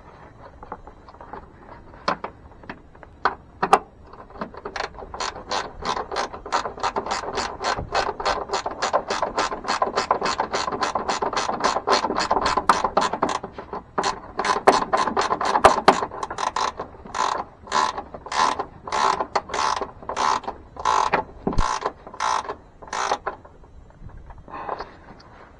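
Ratcheting wrench clicking as it tightens a long screw fastening a ground wire to the truck's body: a long fast run of clicks, then slower, separate clicks toward the end as the screw snugs down.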